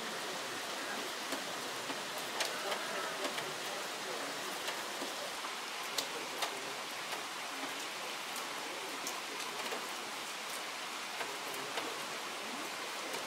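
Steady hiss of background noise, with scattered sharp clicks and faint distant voices.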